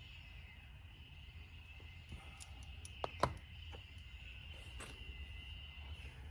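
Faint steady insect trilling with a low hum underneath, broken by two sharp clicks in quick succession about three seconds in.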